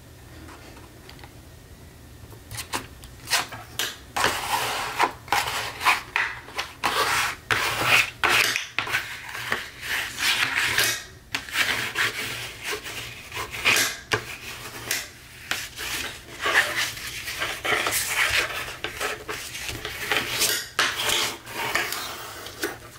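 Bone folder rubbed along a fold in heavy cardstock to crease it, in many short rubbing strokes that start a couple of seconds in.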